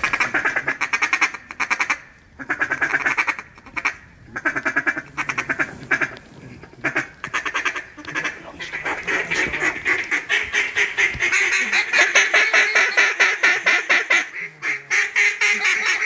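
Duck call blown by a hunter: several short runs of fast quacking, then one long unbroken run of rapid quacks and chatter through the second half.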